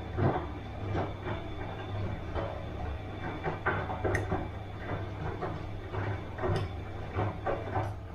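Bosch washing machine running a wash cycle: a steady low hum from the motor, with irregular swishes and knocks about every second as the drum turns the wet laundry.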